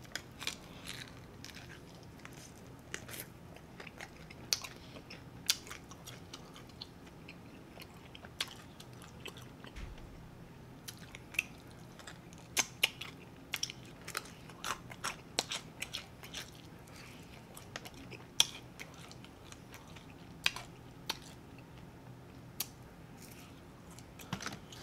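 Close-miked chewing and biting on a bone-in chicken wing: scattered, irregular wet mouth smacks and small crunches.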